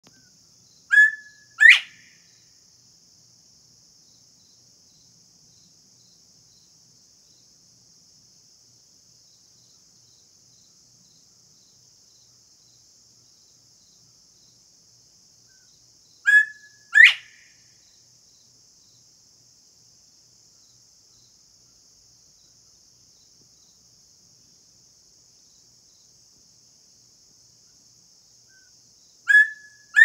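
Male northern bobwhite singing his two-note 'bob-white' whistle three times, about fifteen seconds apart. Each call is a short flat note followed by a loud, sharply rising whistle.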